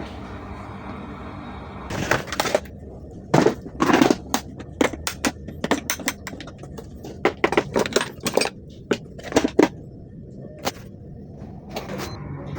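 A dense run of sharp, irregular clicks and knocks, as of hard parts being handled and snapped, over a steady low hum; the clicking starts about two seconds in and dies away after about ten seconds.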